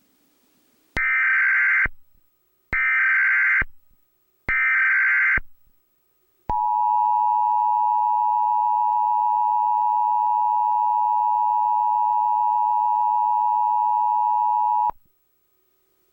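Emergency Alert System broadcast tones: three short bursts of the screeching digital SAME data header, each about a second long with a pause between. Then the steady two-tone EAS attention signal sounds for about eight seconds and cuts off.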